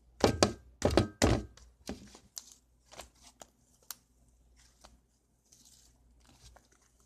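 Hands kneading sticky fluffy slime made of glue, shaving cream and contact solution: a few loud squishing thuds in the first second and a half, then scattered softer sticky clicks and crackles.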